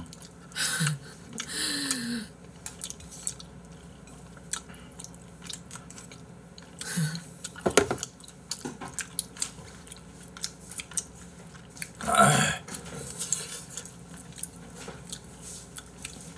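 Close-up eating sounds: chewing pasta, with chopsticks clicking against ceramic bowls. Several short, louder bursts of noise come through, the strongest about 8 and 12 seconds in.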